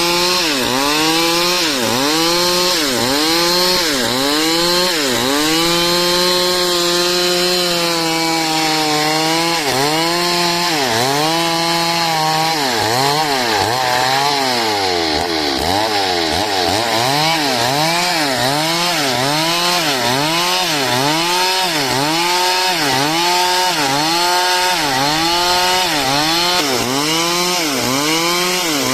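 Stihl chainsaw cutting dry wood lengthwise into a beam. The engine note sags and climbs back about once a second as the chain loads and frees in the cut, holding steadier for a few seconds about a quarter of the way in.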